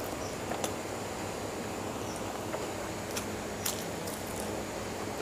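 Close-miked mouth sounds of a person eating rice and mutton curry by hand: chewing with a few sharp wet clicks over a steady background hiss.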